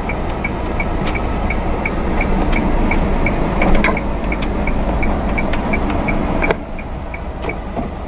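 Vehicle engine and road noise heard from inside the cab while driving slowly, with a turn-signal indicator ticking steadily about three times a second. The running noise drops suddenly about six and a half seconds in while the ticking carries on.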